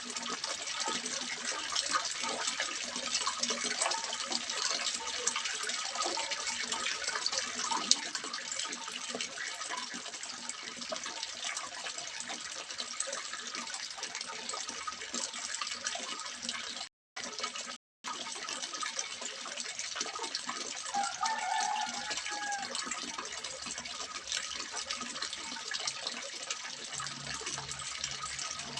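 Water splashing steadily into a small fish pond, a continuous even rush of water. It cuts out twice for a moment about two-thirds of the way through.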